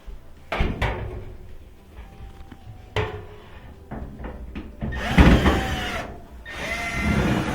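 A screwdriver backing a screw out of a dryer's sheet-metal panel: a few sharp clicks, then louder metallic scraping and squeaking about five seconds in and again near the end.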